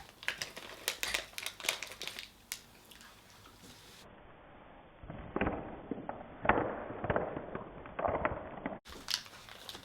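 Plastic snack wrapper crinkling and crackling. About four seconds in, a muffled, separately inserted clip takes over, with several sharp bangs or pops, then it cuts off abruptly near the end.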